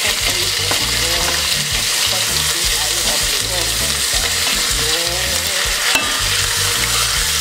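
Veal shanks and onion sizzling steadily in hot olive oil in a stainless steel pot as the meat is turned to brown each side.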